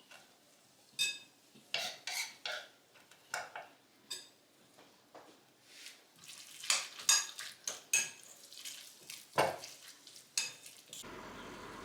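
A metal spoon stirring tuna filling in a bowl, with irregular clinks and scrapes against the side of the bowl, some of them ringing briefly.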